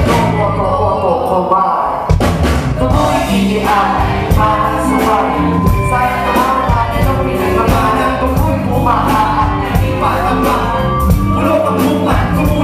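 Live band with male and female singers singing together into microphones over drums and bass. The cymbals drop out briefly near the start, and the full band comes back in with a hit about two seconds in.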